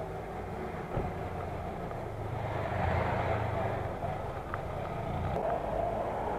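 Motor vehicle engine running close by, a low steady hum of street traffic, with a single short knock about a second in.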